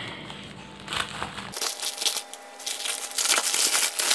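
Plastic courier mailer being pulled open and handled, its plastic crinkling and crackling in irregular bursts.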